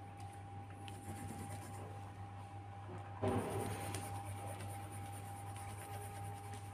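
Pencil scratching on paper as a drawing is coloured in, with a louder rustle or knock about three seconds in, over a steady low hum.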